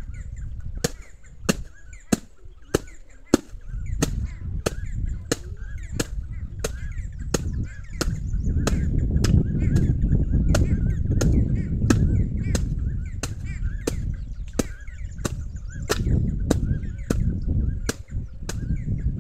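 Wooden stick beating a sack of harvested green grams (mung beans) to thresh the pods: sharp, steady strokes about one and a half a second.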